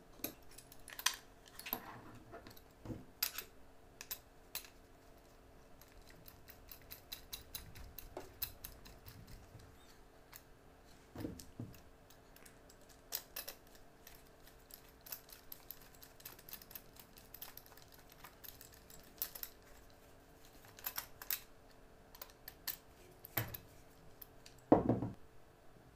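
Small M3 screws and nuts being handled and driven with a screwdriver to fasten a metal gearbox bracket to a plastic support: scattered light clicks, taps and rattles of metal parts, with a louder knock near the end.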